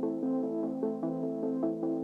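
Background music: a synthesizer playing a quick run of notes over a held low note.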